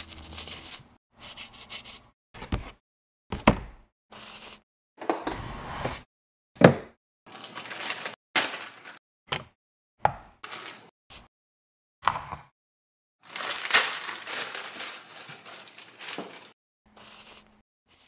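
Plastic packaging crinkling and rustling as parts are unwrapped, with knocks of plastic pieces set down on a table, in a string of short separate bursts with dead silence between them; a longer stretch of crinkling comes about three quarters of the way through.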